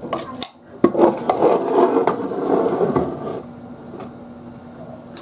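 Kitchen handling noise from a measuring spoon and a plastic ingredient container: a few light clicks, then about two seconds of rustling and scraping.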